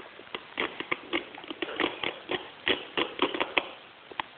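Gaffer tape being picked and peeled off a taped-up gift box: an irregular run of short crackles and ticks, one more coming near the end.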